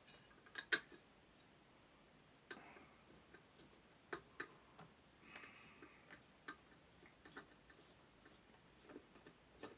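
Sparse, irregular light clicks and taps of small fan parts being handled during disassembly, with a sharper double click just under a second in. Between the clicks there is near silence.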